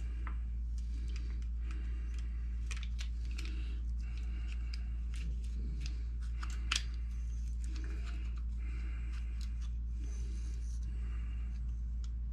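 Small hand-handling sounds of an RC car's ESC being fitted into a plastic ESC cage: scattered light clicks and rustles, with one sharper click about seven seconds in, over a steady low hum.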